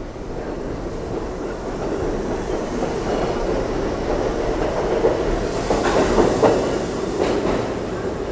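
R62A subway train pulling out of the station and picking up speed, its rumble growing louder through the first half. Its wheels clack over the rail joints in a quick run of clicks about six to seven seconds in. The rumble eases slightly near the end as the last car pulls away.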